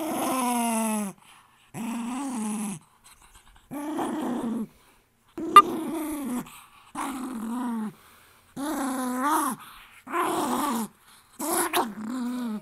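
A dog growling over a teddy bear toy in her mouth: about eight drawn-out growls, each roughly a second long with short breaks between, wavering up and down in pitch. There is a sharp click about halfway through.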